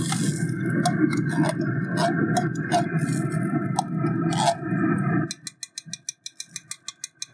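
Thick condensed cream of mushroom soup glopping out of a can into a cast-iron pot and being scraped out with a spoon, wet squelches and light clicks of metal on the can. A steady low rumble runs underneath and cuts off about five seconds in, followed by a quick, even run of light ticks.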